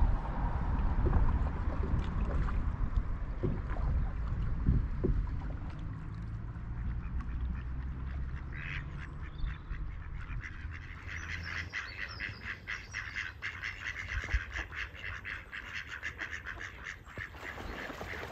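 Mallard ducks quacking in a fast, busy series that starts about halfway through and keeps going. A low rumble is loudest in the first half.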